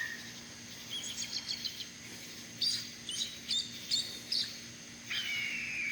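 Bird calling: two runs of short, high chirps, then a longer call that slides down in pitch near the end. A faint steady high-pitched drone sounds underneath.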